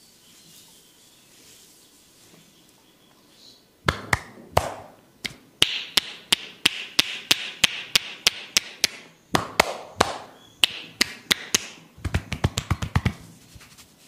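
Percussive head massage: hands tapping and chopping on the head and shoulders, starting about four seconds in as sharp slaps about two to three a second, with a quick flurry of rapid taps near the end.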